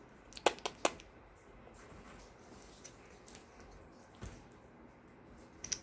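Kittens playing on a bed among loose clothes: quiet rustling of fabric with a few sharp taps, three in quick succession about half a second in and another about four seconds in.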